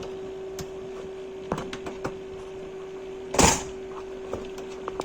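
Steady hum of a running desktop computer, with small clicks and knocks as a PS/2 keyboard cable is handled and plugged in. One louder, short scrape or clunk comes about three and a half seconds in.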